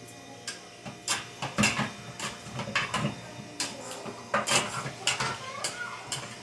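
A spoon scraping and knocking against the metal inner pot of an electric pressure cooker while stirring a sauté of onion, tomato and pepper, in irregular clinks several times a second after a quiet start.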